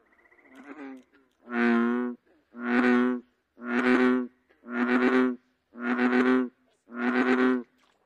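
American bullfrog (Lithobates catesbeianus) calling: a series of six deep, droning calls, each under a second long, about one a second, with a faint rapid buzz just before the first.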